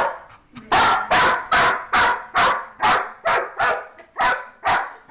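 A dog barking over and over, about two to three barks a second after a brief pause near the start. It is the alarmed barking of a dog spooked by an unfamiliar object, a clock on the floor.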